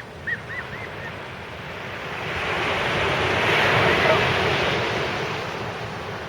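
A sea wave breaking and washing up the beach: the surf swells from about two seconds in, is loudest around four seconds, then fades away, with wind buffeting the microphone. A few short high chirps are heard near the start.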